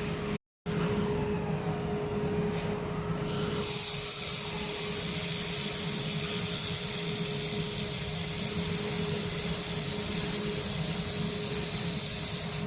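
Reci air-cooled handheld laser welder running a weld: over the machine's steady hum, a steady high hiss starts about three seconds in, holds for about nine seconds and cuts off sharply just before the end as the trigger is released.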